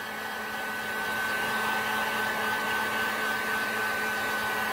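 Handheld electric heat gun running steadily, blowing hot air onto the outside of a soft slab clay bowl to force-dry it to leather hard. It gives a rushing blow with a thin steady high whine, a little louder from about a second in.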